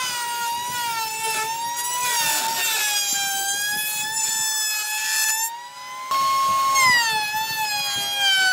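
An electric power tool's motor whining under load, its pitch sagging and recovering as it works the wood. It drops out briefly past the middle, then comes back abruptly at a higher pitch that sags again.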